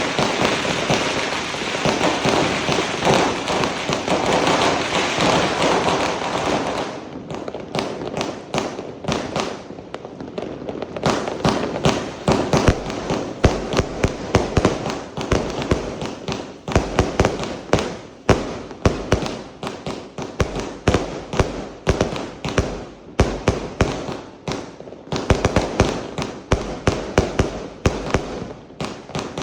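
A 100-shot, 1-inch-tube consumer fireworks cake firing. For about the first seven seconds the shots run together into a dense, continuous crackling rush. After that they come as separate sharp launches and bangs, about three to four a second.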